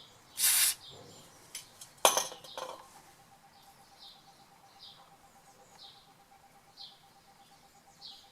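A short scraping noise, then a sharp metallic clink about two seconds in, from parts being handled while greasing the pinion flange. After it a bird chirps about once a second.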